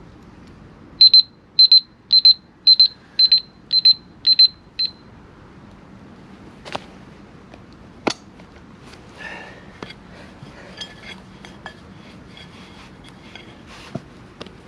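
Eight short, high electronic beeps at one steady pitch, about two a second, like a timer or watch alarm. Two sharp knocks follow, then faint scattered clicks.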